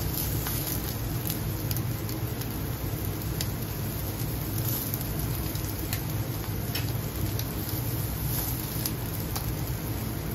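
Yakitori skewers sizzling on a gas grill fired together with charcoal, with scattered small crackles and pops over a steady low hum.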